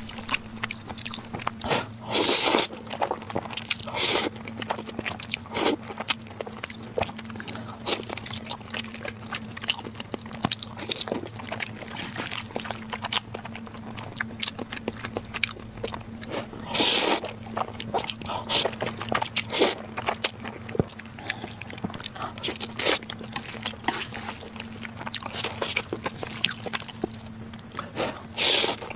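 Close-miked eating of spicy noodles: slurping, chewing and wet mouth clicks, with a few loud slurps of about half a second spread through. A steady low hum runs underneath.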